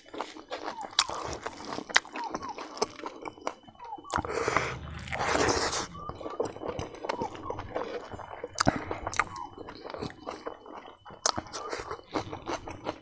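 Close-miked chewing and lip smacking of a man eating rice and roasted pork fat by hand, with many small wet clicks. About four seconds in there is a hiss lasting around two seconds.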